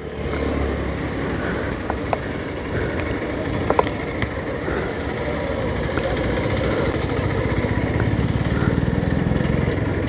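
Motorcycle engine running as the bike is ridden, under a steady rush of noise, with a few sharp ticks in the first half.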